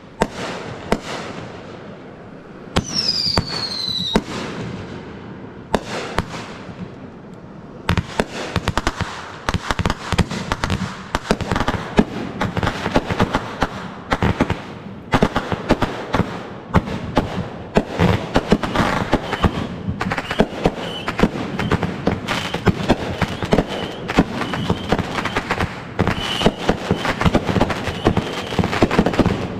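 Fireworks finale: a few bangs and a whistle falling in pitch in the first seconds, then from about eight seconds in a dense, continuous barrage of rapid bangs and crackles.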